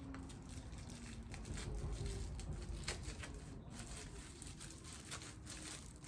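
Faint handling noise from a selfie stick's small plastic remote and its packaging: light rustling and scattered soft clicks, with one sharper click about three seconds in.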